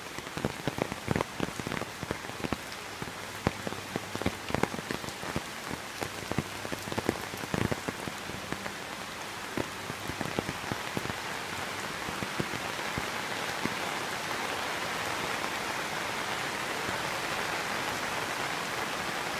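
Heavy monsoon rain falling on floodwater and surfaces: a steady hiss with many sharp, close drop impacts through the first half, settling into a more even, slightly louder hiss later on.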